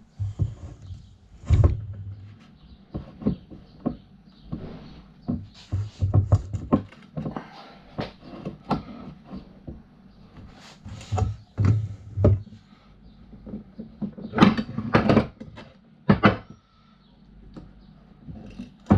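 Irregular clicks, knocks and clatter of aluminium scooter parts and hand tools being handled and pulled apart, with louder knocks about a second and a half in and again around fourteen to sixteen seconds.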